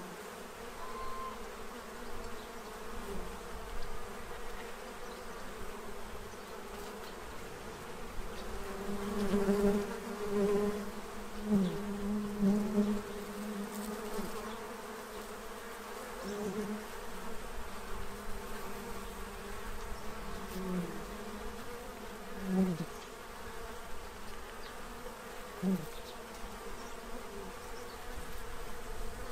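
Many honey bees buzzing around a feeder: a steady hum of wings, with single bees flying close past several times, each swelling louder and bending in pitch as it goes by.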